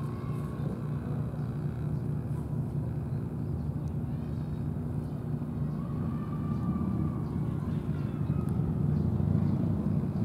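Steady low rumble of distant road traffic, growing a little louder in the second half.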